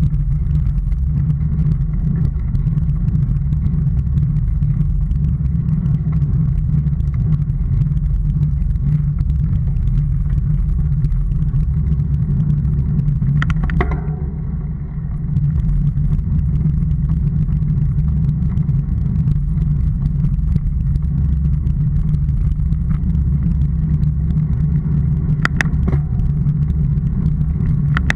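Steady low rumble of a vehicle driving along a rough country road, heard through an onboard camera's microphone. The level dips briefly about halfway through, and there are two short clicks.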